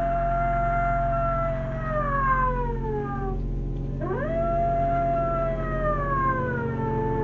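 Two long howls, each sweeping quickly up, holding and then sliding slowly down in pitch, the second starting about four seconds in, over a steady low drone.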